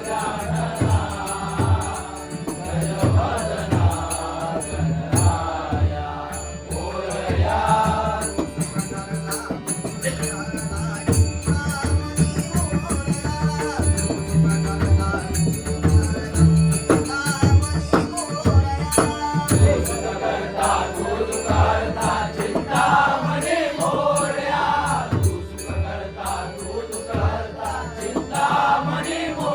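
Traditional Konkan devotional bhajan: voices singing a chant-like melody over a steady beat of drum strokes, with small hand cymbals clinking in time.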